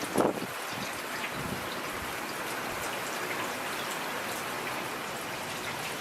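Steady rain falling, a dense even patter of drops, with a short low rumble of thunder in the first half-second.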